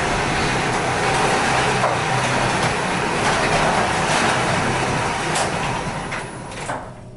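Genie garage door opener raising a newly installed insulated steel sectional door, its panels lined with sound deadening. It runs with a steady noise and stops shortly before the end; to the owner it is pretty quiet.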